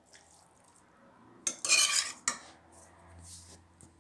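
A metal spoon scraping and clinking against a stainless steel pot while stirring chopped goat meat and onions; the loudest scrape comes about a second and a half in, a sharp clink just after, and softer scraping near the end.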